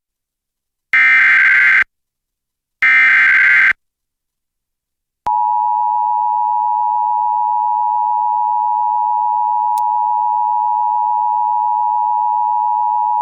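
Emergency Alert System SAME digital header: two data bursts of about a second each, the second and third of the three header repetitions. After a short gap, the steady two-tone EAS attention signal (853 and 960 Hz) starts about five seconds in and holds. Together they announce a severe thunderstorm warning.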